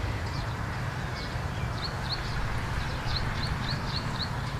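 A small bird chirping in runs of short high notes, about three a second, over a steady background hiss and low hum.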